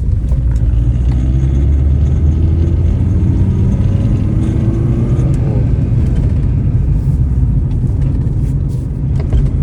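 Lada Priora engine and drivetrain running with a heavy low rumble, the engine note rising as the throttle is pressed around the middle, with a few short sharp knocks near the end. The owner hears a knock on pressing the gas and doesn't know what causes it.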